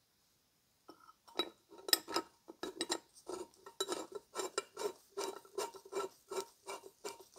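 Small steel hinge screw turned in by gloved fingers, each twist giving a short scraping rasp of metal and glove, about three a second.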